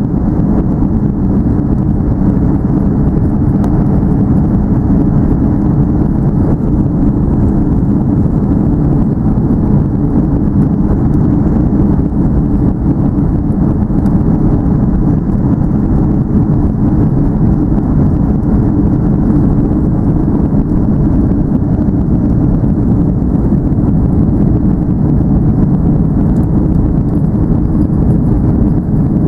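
Airbus A330-200 jet engines and airflow under high power during takeoff, heard inside the passenger cabin as a loud, steady, low rumble with little high pitch and no rise or fall.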